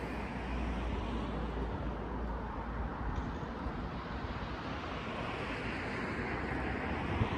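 Steady outdoor ambient noise: a low rumble under an even hiss, like distant traffic with light wind on the microphone.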